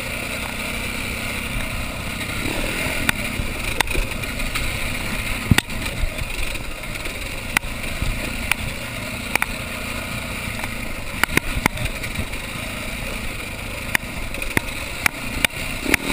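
Husaberg dirt bike engine running steadily as the bike rides over a rough, rutted trail, with irregular knocks and clatter from the bike jolting over bumps.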